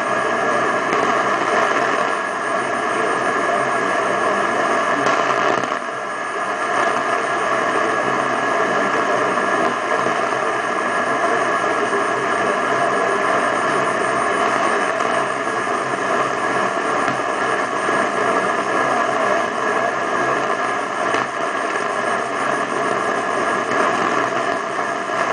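Medium-wave AM radio on 1134 kHz giving steady rushing static with no speech: the station's signal is faded and buried under thunderstorm interference.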